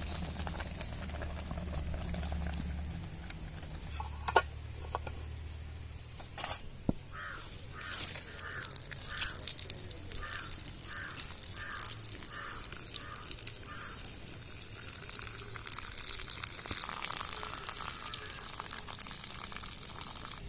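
Starch water being drained off boiled rice: a tilted metal pot pouring a stream of hot water that splashes onto bare ground, with a few knocks of the pot being handled.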